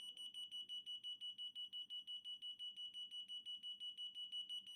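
TON-1S-24 24-volt fire alarm sounder beeping a high, steady-pitched tone that pulses rapidly and evenly, about seven beeps a second.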